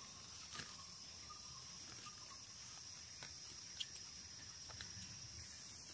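A steady, high-pitched insect drone, with a few faint clicks.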